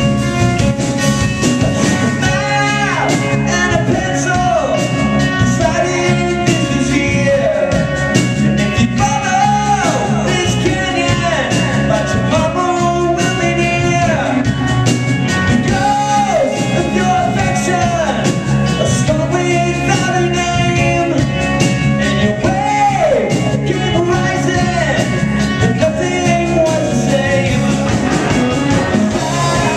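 Live rock band playing loud electric guitars over a drum kit, with a lead line that slides down in pitch every couple of seconds.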